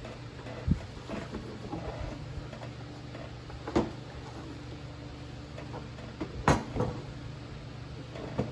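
Handling knocks and clatter as the fuel tank is worked loose and lifted off a Briggs & Stratton Quantum mower engine: three separate sharp knocks, the loudest about six and a half seconds in.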